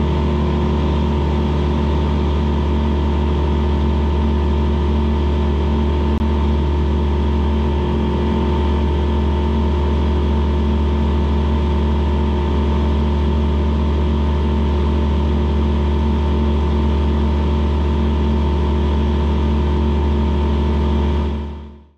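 Aquila A211 light aircraft's Rotax 912 flat-four engine and propeller running at a steady, even drone with no change in pitch; it fades out quickly near the end.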